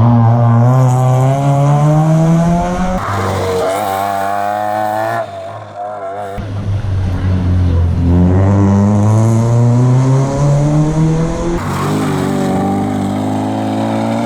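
Rally car engine accelerating hard, its pitch climbing steadily for several seconds at a time, with abrupt breaks about three and five seconds in.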